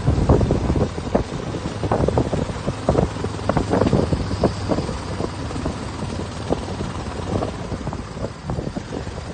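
Wind buffeting the microphone of a moving vehicle in irregular gusts and thumps, over the running of a motor scooter on a rough dirt track.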